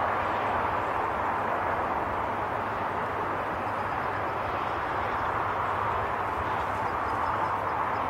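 A huge murmurating flock of small birds wheeling overhead, heard as a steady, dense rush of sound.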